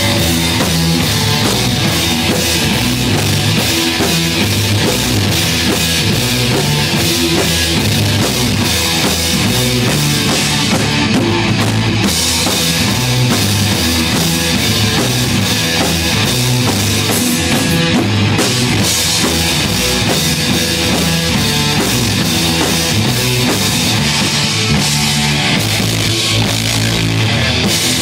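A rock band playing loudly: electric guitars, bass guitar and a drum kit with cymbals, an instrumental passage without vocals.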